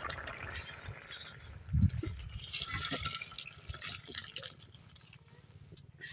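Curry bubbling in a karai, then a thud about two seconds in and the thick fish-and-potato curry sliding and slopping out of the pan into a steel bowl, followed by a few light clinks as it settles.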